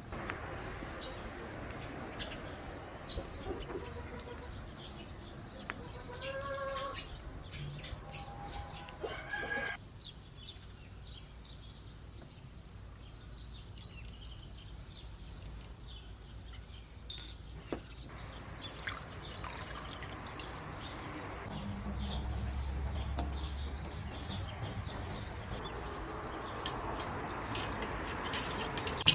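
Chickens calling, with clear pitched calls about six seconds in and again around eight to ten seconds. The background sound changes abruptly twice, near ten and near eighteen seconds.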